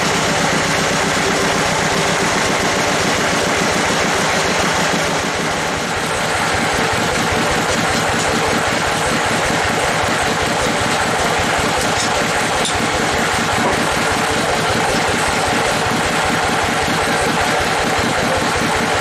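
A bandsaw mill's engine running steadily at idle with an even, fast pulsing, while the log is set on the carriage between cuts.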